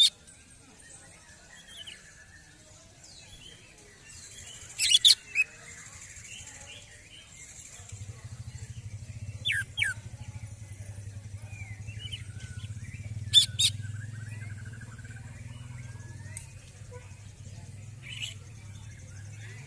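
Greater green leafbird (cucak ijo) calling in a worked-up state, which its keeper calls 'emosi' after a contest: loud sharp notes, mostly in pairs, about every four seconds, over softer varied twittering. A low steady hum comes in about eight seconds in.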